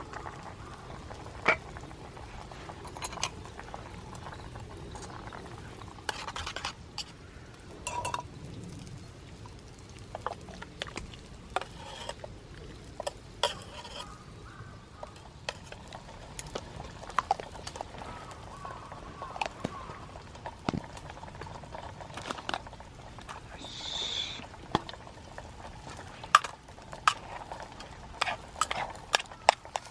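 Utensils clinking, scraping and knocking against metal pots and dishes in scattered, irregular strikes, the sound of food being stirred and served out of camp cookware.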